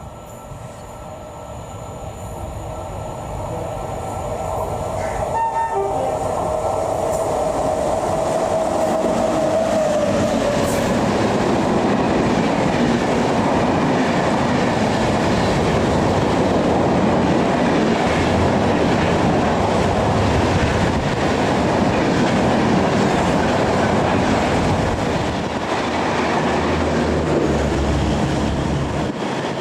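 Express train approaching and passing at speed: the locomotive horn sounds for several seconds and drops in pitch as it goes by, followed by a steady rush and clatter of the coaches that eases off near the end.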